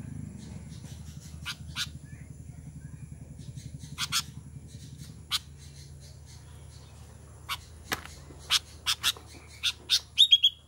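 Sooty-headed bulbul (kutilang) giving short, sharp call notes at irregular intervals, coming faster near the end in a quick run of notes.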